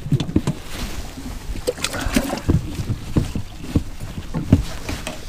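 Jacket fabric rustling against a body-worn camera, with irregular knocks and thumps from moving about on a fishing boat's deck.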